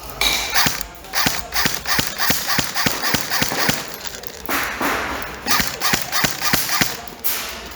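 Airsoft guns firing in quick single shots, sharp pops about three a second, with a short stretch of hissing noise about halfway through.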